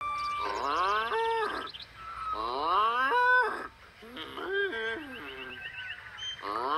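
Three drawn-out, cartoonish moos voiced in imitation of a cow, each sliding up in pitch and then held for a moment.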